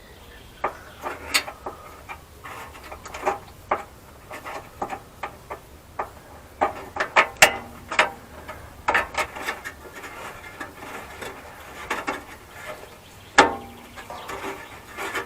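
Irregular clicks, taps and light knocks of hand work under a car with pliers and small hardware (screws, nuts, washers), some in quick clusters.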